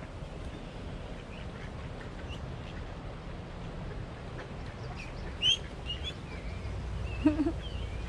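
Ducks quacking now and then, with a few short high calls among them, over a steady low outdoor rumble.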